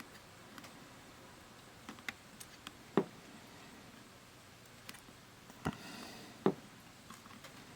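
Light clicks and taps of small tools and parts being handled on a workbench, with a few sharper knocks, the loudest about three seconds and six and a half seconds in.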